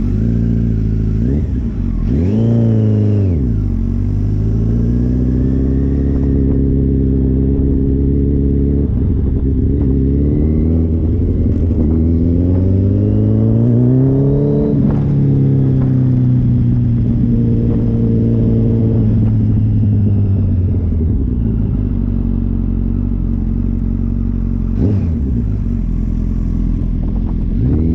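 Inline-four litre sport bike engine riding through town: a quick rev early on, then a long pull with the pitch climbing steadily for about ten seconds, a sudden change as the throttle or gear shifts, easing off and dropping in pitch, a steady cruise, and another brief dip and rise near the end.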